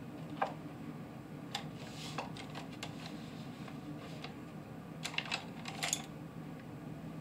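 Paintbrush handles clicking and rattling against each other in a crowded brush holder as a thin brush is picked out: a few scattered light clicks, then a short cluster about five seconds in, over a steady low hum.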